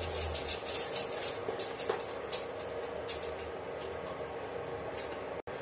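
Jaggery melting in a little water in a hot non-stick pan, sizzling with quick small crackles that thin out after about three seconds into a steady hiss.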